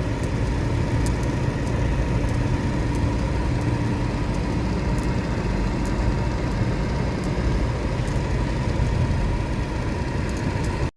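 Steady low rumble of a running vehicle engine, with a faint constant hum over it; it cuts off abruptly at the end.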